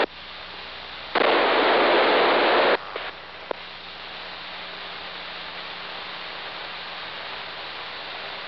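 Two-way radio static: a loud burst of hiss about a second in, lasting about a second and a half, as a transmission is keyed with no voice on it. After that a steady low radio hiss with a faint hum, broken once by a small click.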